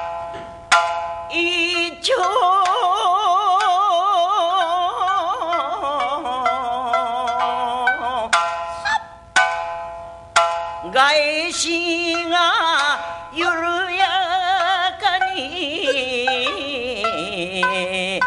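Naniwabushi (rōkyoku) singing: a woman's voice holds long notes with strong, wavering vibrato. Sharp plucked shamisen notes come in between the phrases, mostly in the first half.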